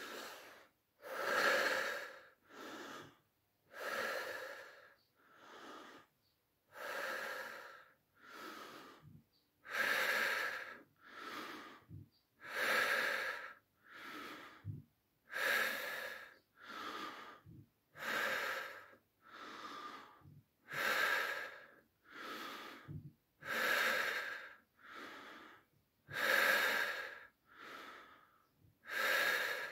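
A man breathing deeply and audibly through the mouth in a steady, continuous rhythm, the sound of a deep belly-breathing exercise: each full breath in is followed straight away by an unforced breath out. A louder breath alternates with a softer one, roughly one in-and-out cycle every three seconds.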